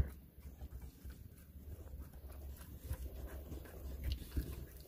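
A dog's faint chewing and mouth-smacking, soft scattered clicks, as it works the last small piece of a dried pig-ear chew.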